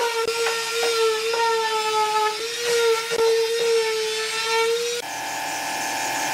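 Electric palm sander running on pine boards, a steady motor whine with short clicks as the pad is pressed and moved over the wood. About five seconds in it cuts abruptly to a different steady buzzing hum.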